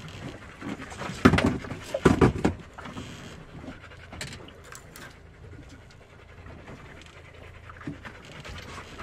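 Dog panting close by, loudest in two bursts about one and two seconds in, then softer.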